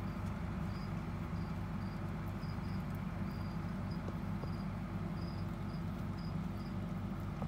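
Steady low hum, with faint short high-pitched insect chirps repeating irregularly about twice a second.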